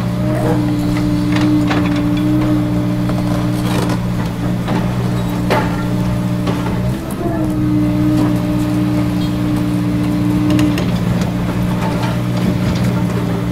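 Kobelco SK200 hydraulic excavator working at close range: its diesel engine runs steadily under load, with a higher steady hum that comes in twice for a few seconds as the boom and bucket move, and scattered knocks.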